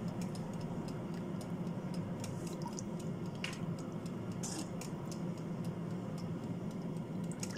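Gravy simmering in a saucepan while being stirred to thicken it: scattered small clicks and pops from the bubbling and the utensil against the pan, over a steady low hum.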